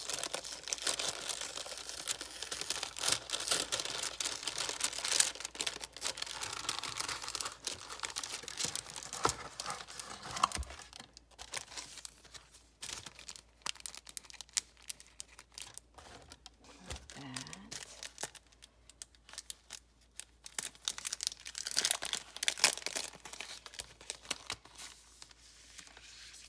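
Tissue paper rustling and crinkling as it is unfolded by hand. It is densest for about the first ten seconds and again about 22 seconds in, with lighter scattered crackles between.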